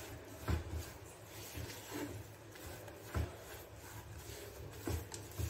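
Spatula stirring and pressing thick gram flour roasting in ghee in a nonstick pan: soft, irregular scraping strokes against the pan, a few of them sharper knocks.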